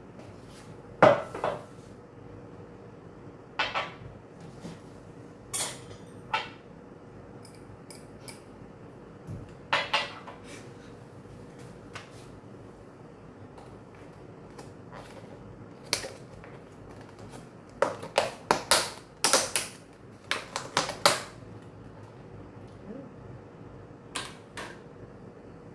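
Dishes and utensils being handled: scattered sharp clicks and knocks, with a quick run of them about three quarters of the way through.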